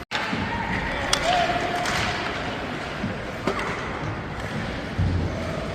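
Ice rink sounds during a hockey game: sharp clacks of sticks on the puck and a heavy thud about five seconds in, over the voices of spectators.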